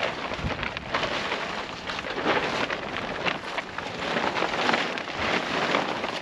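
Large polyethylene tarp crinkling and rustling as it is shaken out and folded by hand, coming in uneven swells.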